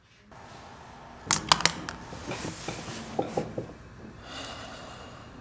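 Small handling sounds at a desk: a quick cluster of sharp clicks about a second in, then a few lighter ticks and some rustling, like things being picked up and set down on a tabletop.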